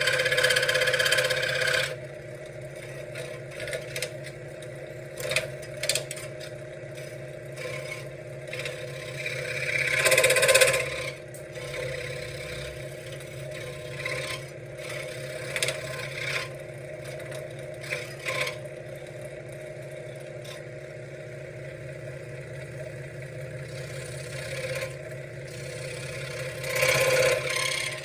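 Benchtop scroll saw running with a steady, fast reciprocating buzz as its blade cuts through wood, with louder rasping stretches near the start, about ten seconds in, and near the end.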